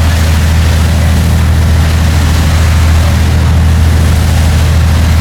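Steady low drone of a fishing boat's engine running, with a constant hiss over it.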